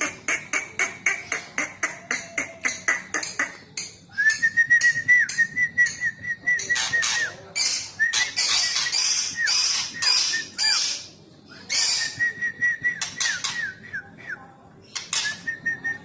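White-rumped shama (murai batu) calling in short fragments. It gives fast sharp ticking notes and several runs of quick, evenly repeated whistled notes on one pitch, broken by a few louder harsh bursts, rather than full song.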